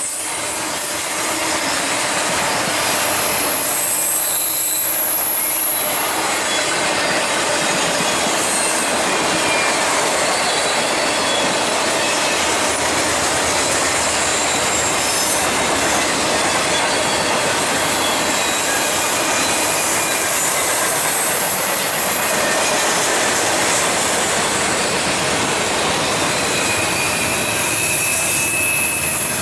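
Intermodal freight train rolling past, a loud steady noise of wheels on rail, with high-pitched wheel squeals coming and going.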